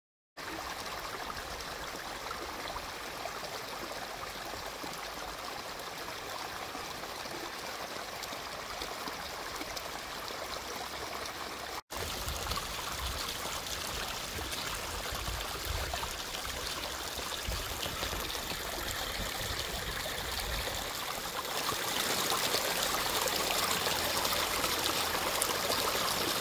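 A small, shallow brook rippling and trickling over grass, roots and stones in a steady rush. After a brief break about halfway through the water is louder and fuller, and it grows louder again near the end.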